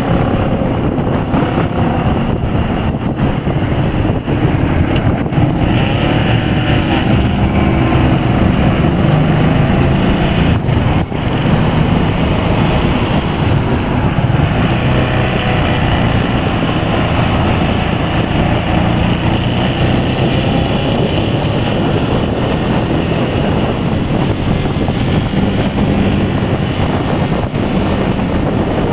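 Keeway K-Light 202 motorcycle engine running under way in traffic, its pitch rising and falling several times with throttle and gear changes.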